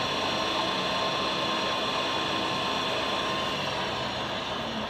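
1952 Fosdick radial drill running, its 3-horsepower motor turning the spindle under power feed, with a steady mechanical whine. The level eases slightly near the end.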